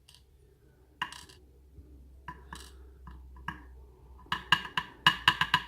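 Small metal lock pins clinking as they are handled, with a few scattered clicks at first, then a quick run of light ringing clinks near the end.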